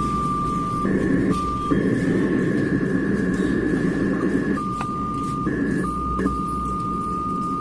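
Home theatre amplifier speaker giving a steady electronic whistle over a rough low hum. The whistle jumps back and forth between two pitches several times. This is the 'train whistle' fault the repair is meant to cure.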